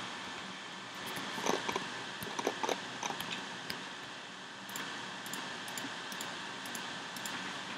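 Steady background hiss, with a quick run of small sharp clicks between about one and four seconds in: computer mouse and keyboard clicks.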